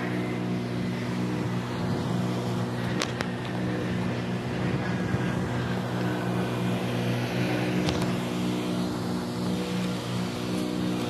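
Gas engine of a pressure-washing rig running at a steady speed with an even hum, and a few faint clicks over it.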